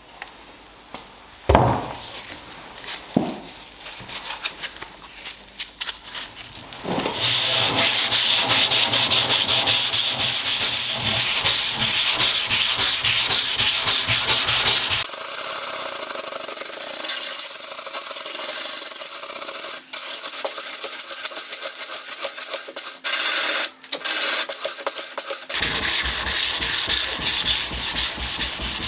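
Hand wet-sanding a steel sword blade with an abrasive block, in rapid back-and-forth scraping strokes. The first few seconds are quieter, with a couple of sharp knocks, before steady sanding takes over.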